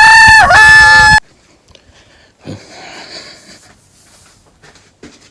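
A rooster crowing: one loud call, bending in pitch and then held, that cuts off about a second in. Faint scattered small sounds follow.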